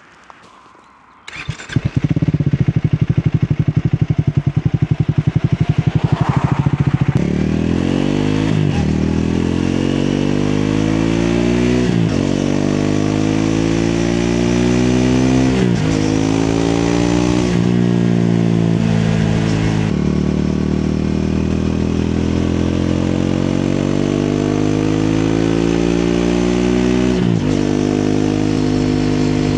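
Triumph Speed 400's single-cylinder engine starting about a second and a half in and idling with a fast, even beat, then pulling away and accelerating through the gears: the note climbs and drops back at each upshift, about six times.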